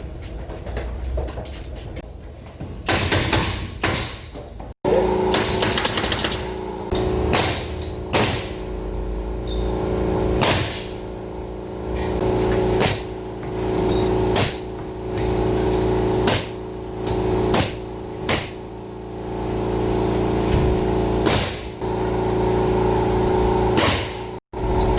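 A machine hum starts about five seconds in and runs steadily, with sharp knocks every second or two over it.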